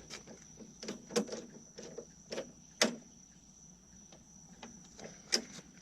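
Scattered sharp metallic clicks and knocks of hand work on a push mower's drive control cable, the loudest about three seconds and five seconds in. A steady high insect trill runs underneath.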